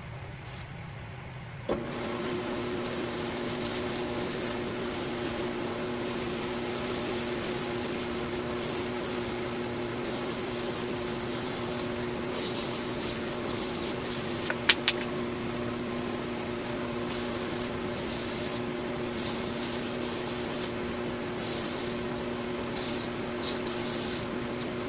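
Belt grinder starting suddenly and running with a steady hum while the steel blade of a draw knife is ground on a coarse 36-grit belt. The grinding hiss swells and drops as the blade is pressed on and lifted off, with two sharp ticks about halfway through.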